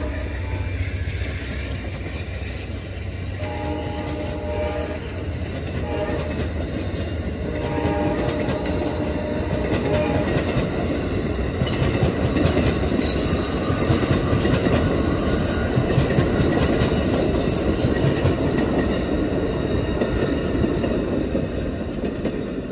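Amtrak passenger train passing at speed. A locomotive horn sounds several separate blasts in the first ten seconds, each weaker than the last. Then the passenger cars' wheels clatter and rumble over the rails, growing louder through the middle and easing off near the end as the last cars go by.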